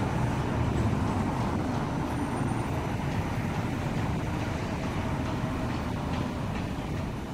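Street traffic noise with a CRRC supercapacitor tram pulling away along its street track, the low running rumble slowly fading as it draws off.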